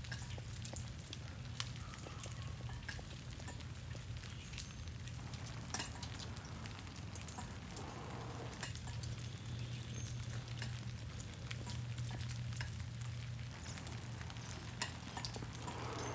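Light freezing drizzle ticking and crackling on ice-coated tree branches: a steady fine crackle with scattered sharper clicks, over a low steady hum.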